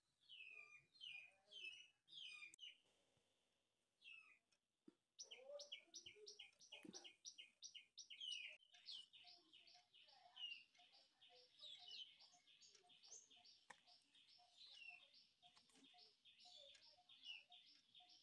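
Faint small birds chirping: a few quick falling chirps at first, then from about five seconds in a fast, steady run of high chirps, several a second.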